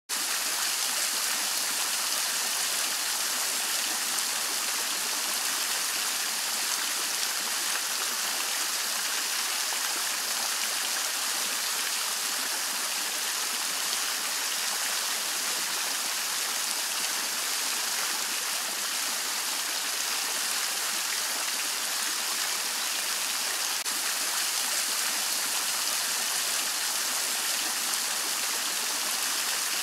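Henri Studio three-tier Renaissance fountain running: water spills over the edges of its bowls and falls into the basin below, making a steady splashing and trickling.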